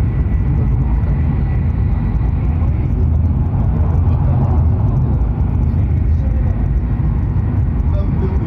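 Steady low rumble and hiss of a Hokuriku Shinkansen train running at speed, heard from inside the passenger car, with a faint high whine that fades out about three seconds in.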